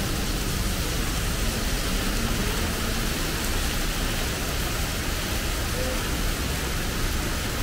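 Heavy rain pouring onto pavement and road, a steady hiss.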